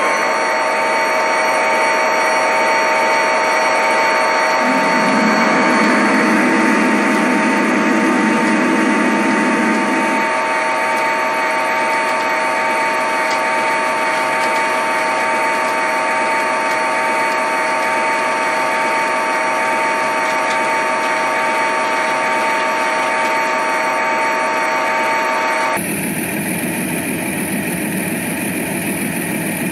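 Model coal train running across a steel bridge: a steady whine of small locomotive motors and wheels rolling on the rails, with a deeper hum added for a few seconds. About 26 seconds in, the sound cuts to a quieter, different steady noise.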